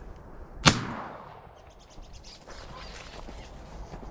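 A single shot from a side-by-side 12-gauge shotgun about a second in, its report dying away over about a second.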